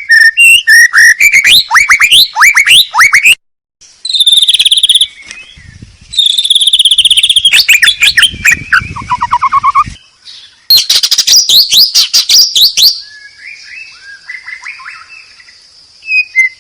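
White-rumped shama (murai batu) singing a loud, varied song: rapid rising whistled notes, buzzy trills and falling note series, in phrases broken by short pauses.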